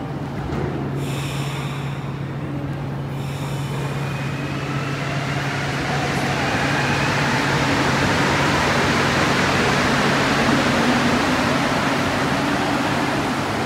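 Montreal Metro rubber-tyred train running through the station: its noise builds to a peak about three-quarters of the way through and eases slightly near the end, with a faint rising motor whine partway through.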